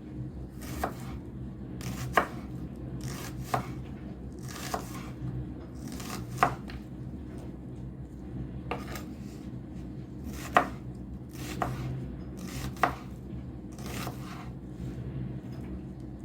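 Knife chopping food, about a dozen separate strokes at an uneven pace of roughly one a second, some sharper and louder than others.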